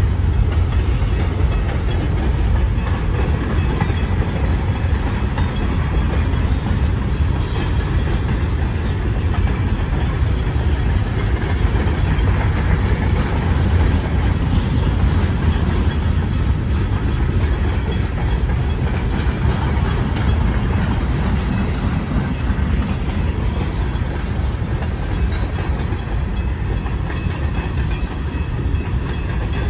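Great Lakes Central Railroad freight cars rolling past close by, their wheels rumbling steadily on the rails.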